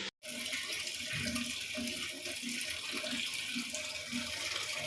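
A steady rushing hiss like running water, starting just after a sudden brief cut in the sound.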